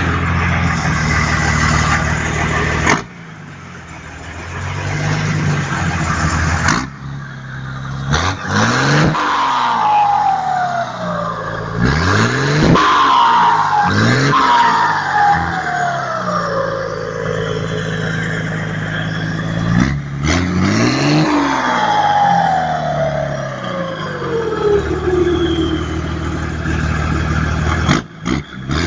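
Mercedes-Benz 1518 truck's OM352A six-cylinder turbo diesel, with a comb fitted in the turbocharger intake. The engine runs lower for a few seconds, then rises and falls in revs several times. Each time the revs drop, the turbo gives a loud 'singing' whistle that slides down in pitch.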